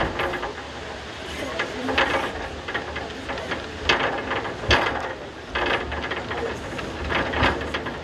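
Reichenbachfall-Bahn cable funicular car running along its rails, with a steady low rumble and irregular clattering and hissing noises every second or so.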